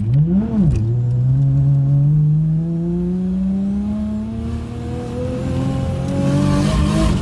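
Turbocharged Nissan Skyline engine heard from inside the cabin: a quick rev that rises and falls about half a second in, then the engine note climbs steadily as the car accelerates through a gear.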